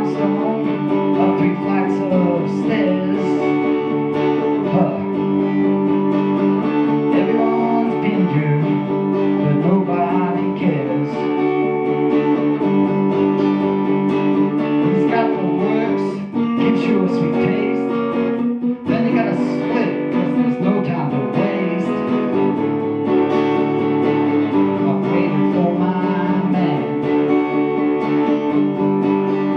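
Telecaster-style electric guitar played through an amplifier, strumming chords steadily, with two short breaks a little past halfway.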